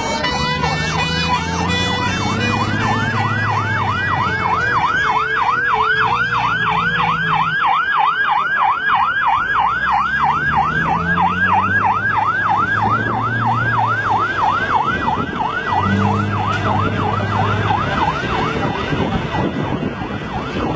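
Fire engine siren: a steady tone at first, then about two seconds in it switches to a fast yelp, sweeping up and down about three times a second.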